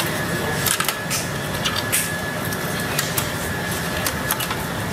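Irregular sharp clicks and light knocks from gloved hands working the wire connectors and plastic parts of an electric water heater's control compartment, over a steady background hiss.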